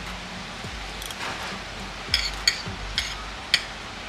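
Tableware clinking: a soft scrape about a second in, then four short, sharp clicks in the second half.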